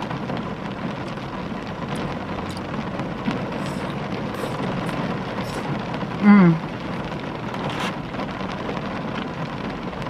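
Rain falling steadily on a car's roof and windows, heard from inside the cabin, with a few faint clicks of eating. About six seconds in, a short, loud 'mmm' hum that falls in pitch.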